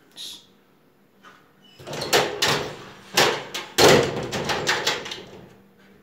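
A glass-paned door with a lever handle rattling and banging in a run of loud clattering knocks over about three seconds, as a White Swiss Shepherd paws at the handle to open it.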